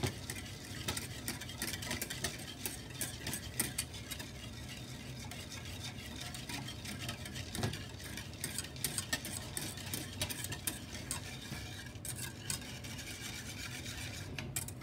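Wire balloon whisk stirring brown sugar and water in an aluminium saucepan to dissolve the sugar, its wires clicking and scraping rapidly against the pan. A steady low hum runs underneath.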